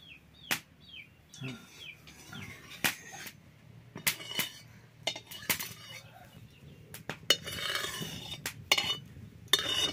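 Steel spatula and bowl clinking and knocking against a metal karahi as oil is poured into the pan and spread, in scattered sharp strikes. A brief hiss comes about three quarters of the way through.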